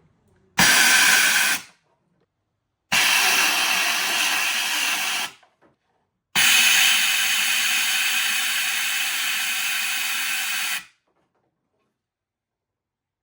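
Compressed-air blow gun hissing in three blasts, a short one, a longer one, and a longest one of about four and a half seconds, each starting and cutting off sharply. It is blowing standing rainwater out of the engine's spark plug wells.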